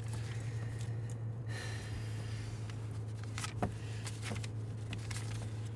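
Steady low hum of a car's cabin, with a few faint rustles and clicks of banknotes being counted by hand.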